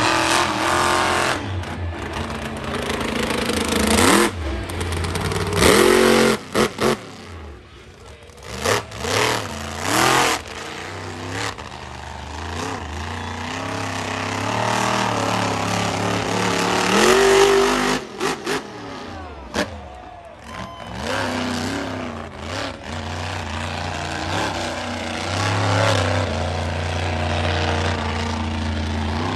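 Monster truck engine revving hard over and over, its pitch climbing and falling, with several sharp cracks in the first ten seconds.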